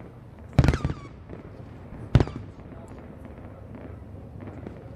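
Aerial firework shells bursting: two loud booms about a second and a half apart, and a third right at the end, each trailing off in a brief echo over a low steady background.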